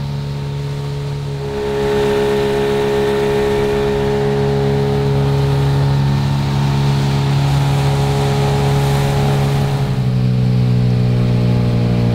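A boat's engine running steadily under way. It gets louder about two seconds in and drops slightly in pitch near the end as the throttle eases.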